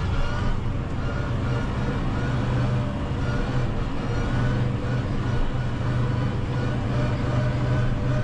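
Valtra N 121 tractor's four-cylinder diesel running steadily under mowing load, heard from inside the cab as an even drone.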